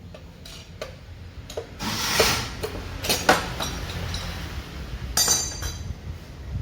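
Metal tools and engine parts clinking and clattering as an engine is dismantled: a scatter of sharp clinks and knocks, two louder knocks about three seconds in, and a ringing metal clatter near the end.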